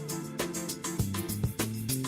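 Upbeat background music with guitar and a steady drum beat.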